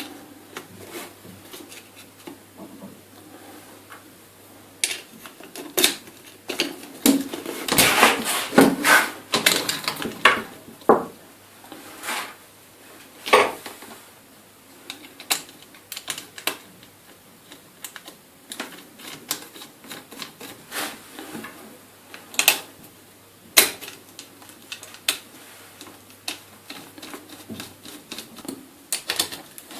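Irregular sharp clicks and knocks of small metal and plastic parts: inline skate wheels, axles and screws being fitted into the skate frame and turned with a hex key. The clicks come thickest a few seconds into the run, then go on sparser.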